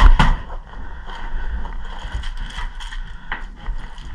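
Two sharp cracks at the start, then scattered clicks, knocks and scraping with a rustling background, the sound of a player moving with gear during indoor airsoft play.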